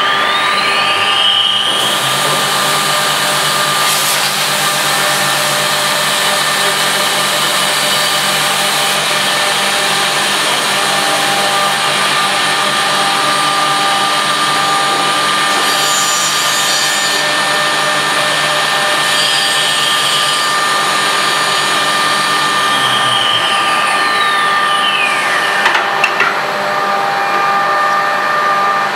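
Spindle of a Weeke BMG111 (Venture 108M) five-axis CNC machining centre whining up to speed, then running steadily while it machines a wooden workpiece, over a steady machine hum. About 23 seconds in the whine falls away as the spindle winds down, followed by a couple of clicks.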